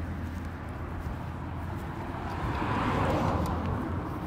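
Roadside vehicle noise outdoors: a steady low rumble, with a swell of noise that rises and fades about two and a half to three and a half seconds in, like a car passing.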